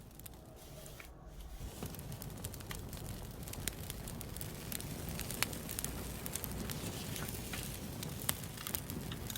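Campfire crackling: a steady low rumble of burning with scattered sharp pops and snaps.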